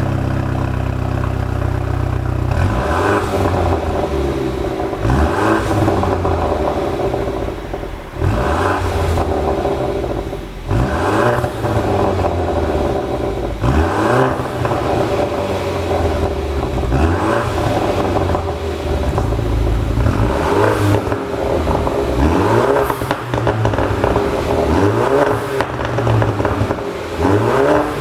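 BMW 430i's turbocharged four-cylinder engine idling, then blipped up in about a dozen quick revs, each falling back with popping and crackling from the exhaust on the overrun, the sign of a pops-and-bangs engine tune.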